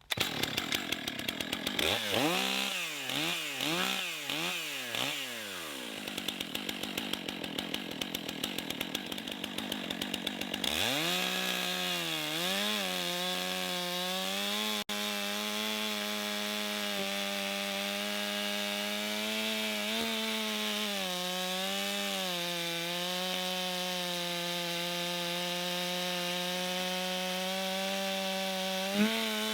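Stihl 661 two-stroke chainsaw revved up and down several times and running unevenly at low speed. About eleven seconds in it is opened to full throttle and holds a steady high pitch with slight dips as it pulls through a large log.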